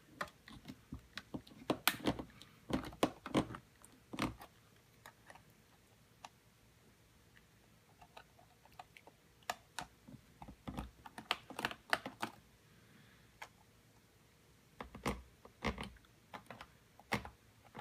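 Small Phillips screwdriver turning the captive screws of a MacBook's battery-bay bracket: light metallic clicks and ticks in three spells with quiet pauses between.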